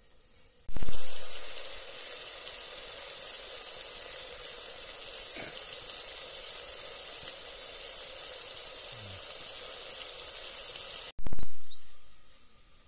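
Chopped vegetables frying in hot oil in a pot over a wood fire: a loud sizzle flares up about a second in and settles into a steady sizzle, then flares loudly once more near the end and dies away.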